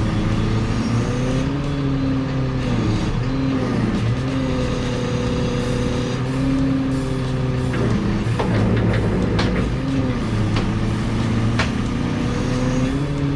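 Heavy truck diesel engine running, its pitch rising and falling with load as the recovery equipment works, with a few sharp clanks in the second half.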